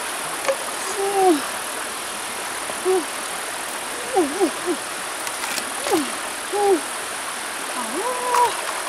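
Shallow river running over stones, a steady rushing hiss. Over it come repeated short vocal calls, each rising and falling in pitch, every second or so and louder than the water.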